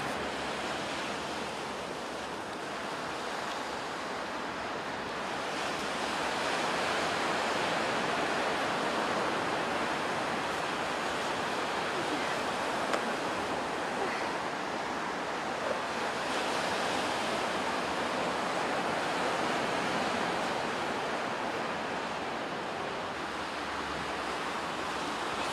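Ocean surf washing steadily onto a sandy beach, with some wind on the microphone. A couple of faint taps about halfway through.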